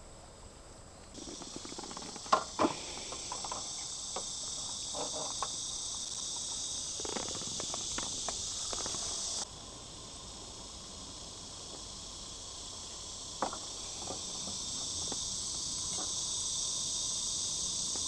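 Crickets chirping steadily in a high, even chorus, cutting out abruptly near the middle and coming straight back. A few light clinks and taps sound over it.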